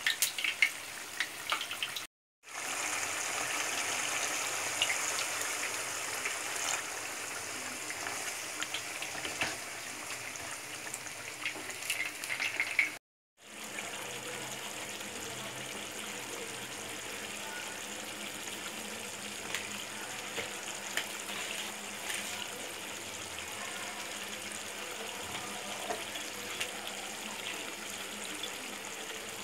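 Mutton curry simmering in a pan, its watery gravy bubbling and sizzling steadily with small crackles. The sound drops out completely twice, briefly, about two seconds in and again about thirteen seconds in.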